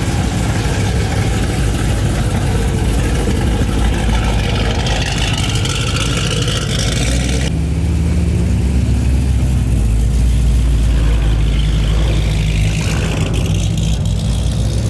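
A high-powered car engine running loudly with a heavy low rumble, a rising whine in the middle, and the higher sounds dropping away suddenly about seven and a half seconds in.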